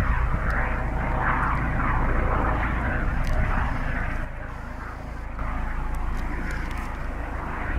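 Helicopter running: steady rotor and turbine noise, dropping a little in level about four seconds in.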